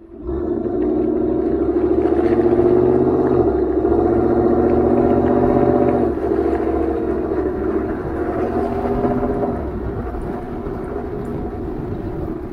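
2019 Ford F-150's engine heard at the dual tips of a Corsa cat-back exhaust in its Sport form, with the stock resonator still in place. The engine starts about a quarter second in and runs at a steady speed with a low rumble. It settles to a quieter idle about six seconds in.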